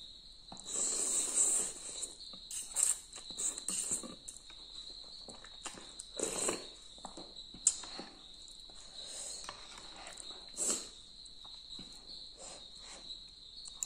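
Thukpa noodles and broth being slurped and chewed in short noisy bursts, with one sharp clink of a metal spoon or fork against the bowl about eight seconds in. A steady high-pitched whine runs underneath.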